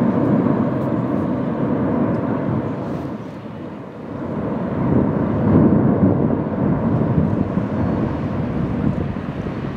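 Erupting volcano with lava fountaining from its vent: a loud, continuous, deep rumble. It dips about four seconds in and swells again a second or two later.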